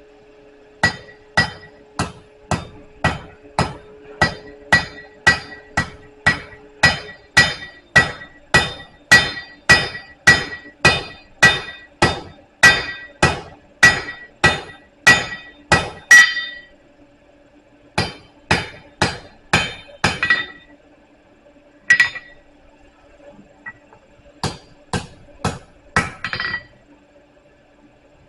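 Blacksmith's hand hammer striking hot steel on an anvil, drawing out a taper on a round bar: a long steady run of ringing blows about two a second, then a short pause and a few shorter runs of blows.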